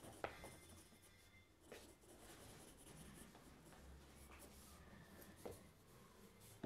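Faint scratching of a graphite pencil on drawing paper as shading strokes are laid in, with a few light knocks.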